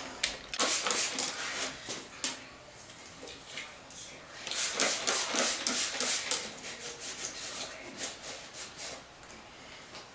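Scrubbing in two bouts of quick rasping strokes about half a second and four and a half seconds in, with scattered single strokes between: cleaning out the rusty cylinder bores of an LS 5.3 V8 block.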